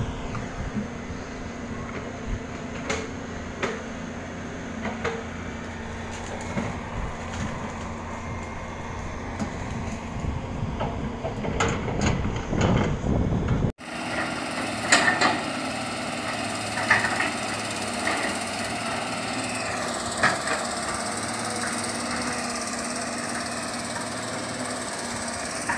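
Excavator diesel engine running, with intermittent knocks and clanks. The sound changes abruptly about halfway through, becoming a steadier engine hum with sharp strikes as soil and rock are loaded into a dump truck.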